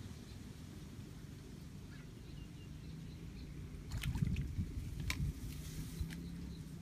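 Handling noise from a person working with gear in undergrowth: a steady low rumble, then a cluster of sharp clicks and knocks about four to five seconds in.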